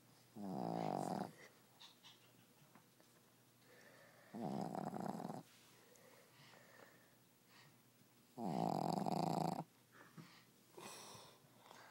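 A dog snoring: three snores about four seconds apart, each lasting about a second.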